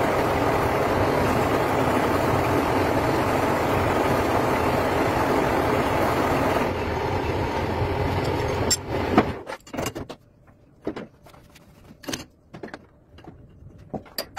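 Metal lathe spinning a motorcycle cylinder block against a honing tool in its bore: a steady grinding run that thins out about seven seconds in and stops about nine seconds in. After that come a few sharp metal clanks and knocks as the block is handled in the four-jaw chuck.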